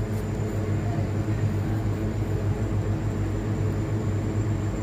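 Steady machine hum with a faint high-pitched whine, unchanging throughout.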